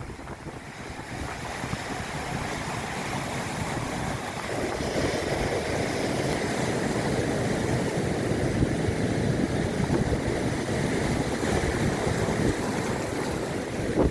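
Black Sea surf washing onto the shore, with wind buffeting the microphone; the rush grows louder about four seconds in.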